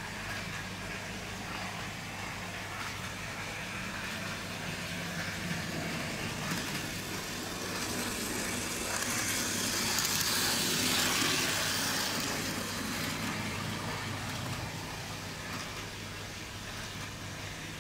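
Small OO gauge Bachmann Wickham Type 27 trolley model running on the track, its micro motor and wheels hissing as it passes close by: the sound swells to a peak around ten to eleven seconds in and fades again. A steady low hum lies underneath.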